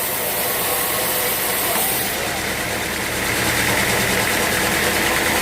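Sawmill machinery running steadily. The sound changes about two seconds in and grows a little louder from about three seconds in.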